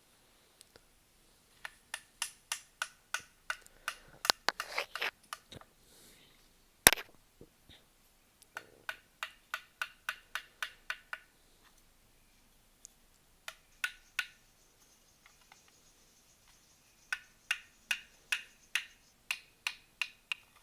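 Runs of sharp, evenly spaced knocks, about three a second, each with a brief ringing tone, like a hand tool striking hard material during building work. There are three runs, one loud crack about seven seconds in, and pauses between the runs.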